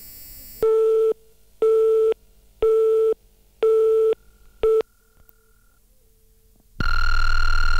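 Telephone busy tone recorded on an answering machine after a caller hangs up: four short beeps, one a second, and a fifth cut off short. After a pause, a long steady beep starts near the end, the answering machine's tone before the next message.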